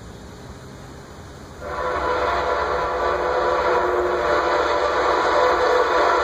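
Amtrak Piedmont train's locomotive horn sounding as the train approaches a grade crossing. One long, loud blast starts about one and a half seconds in and is held steady for the rest of the time.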